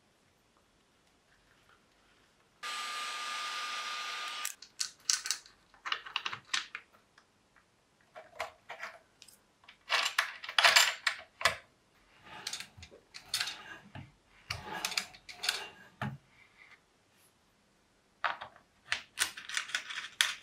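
Small metal parts and wiring handled on a workbench: irregular clicks, taps and light rattles in clusters, the loudest in the middle. A steady whirring hiss lasts about two seconds near the start.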